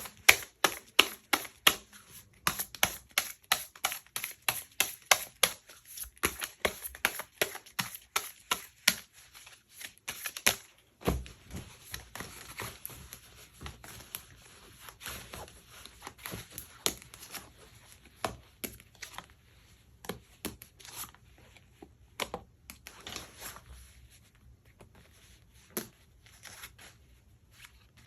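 Tarot cards being shuffled and handled by hand: a quick, even run of card slaps, about four a second, for roughly the first ten seconds. A single knock follows about eleven seconds in, then sparser, softer card handling and rustling.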